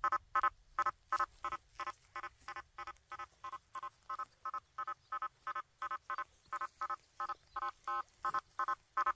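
Quest V80 metal detector's audio signal beeping in a steady run of short, even pulses, about three a second, as its 9-inch coil is swept back and forth over a nail board testing target separation.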